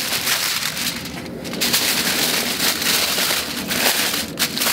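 Aluminium foil crinkling and crackling as it is folded and pressed by hand around a wrapped brisket, with a couple of brief pauses.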